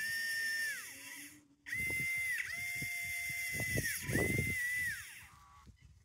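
Electric drive motors of a 3D-printed 1:32 scale RC bulldozer whining as it drives over sand: a short spell, then a longer one of about three seconds, the pitch gliding down each time it eases off. Underneath there is gritty crunching from the tracks in the sand.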